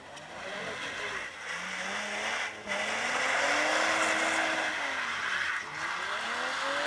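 Sedan being drifted in circles on wet pavement. The engine's revs rise and fall with the throttle under a steady hiss of spinning, scrubbing tyres. The sound drops out briefly about two and a half seconds in, then runs louder, and the revs climb again near the end.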